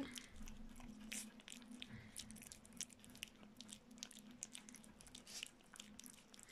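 Faint, irregular wet smacking and clicking of a three-week-old puppy lapping and chewing oatmeal porridge from a plate.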